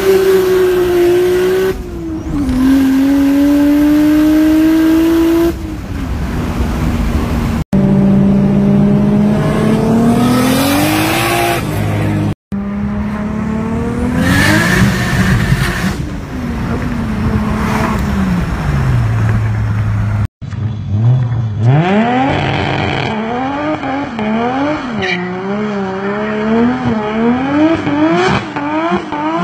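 Toyota JZ-series turbocharged straight-six engines, heard first from inside the car pulling hard through the gears, the pitch climbing and then dropping at each shift. Later the engine is revved up and down in quick, repeated stabs during a burnout with the rear tyres spinning.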